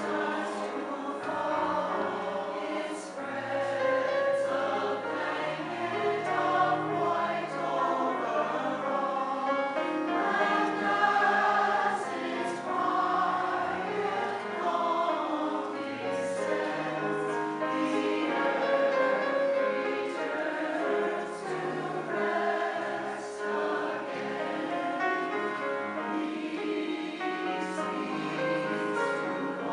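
A community chorus singing, with continuous phrases and no breaks.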